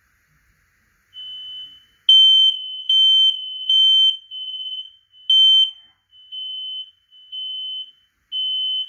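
Smoke alarms sounding during a test: a string of high-pitched beeps of uneven length and loudness, fainter at first, then much louder from about two seconds in, with loud and softer beeps overlapping.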